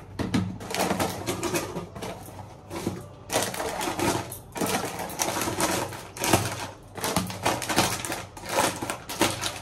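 Plastic grocery packets crinkling and rustling as they are pushed into a clear plastic storage container, with irregular clicks and knocks from the container.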